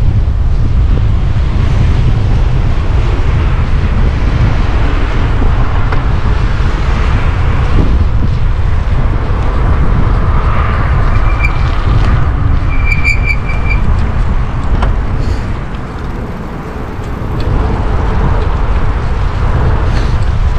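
Heavy wind buffeting on the microphone and road noise from a Stromer ST2 speed pedelec riding at speed, a loud, steady low rumble that eases briefly about three-quarters of the way through. A few short, high beeps sound around the middle.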